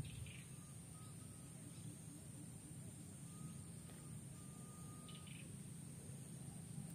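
Quiet outdoor ambience: a low steady rumble and a high steady hiss, with a few faint, thin whistled notes and short chirps from distant birds.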